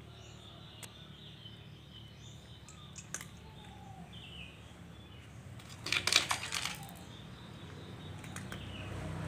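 Quiet background with a few faint clicks, then a short burst of sharp clinking and rattling, like small hard objects knocking on metal, about six seconds in.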